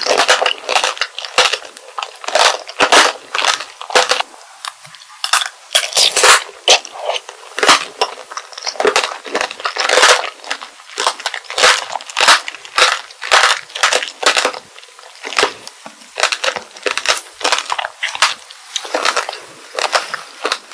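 Chewing a strawberry tanghulu: the hard sugar-glass coating cracks and crunches between the teeth in a quick, irregular run of sharp crunches, several a second.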